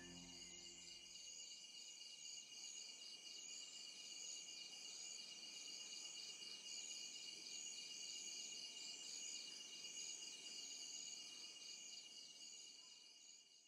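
Crickets and other night insects chirping, faint: a steady high whine with rapid pulsing trills layered above it. The chorus fades out near the end.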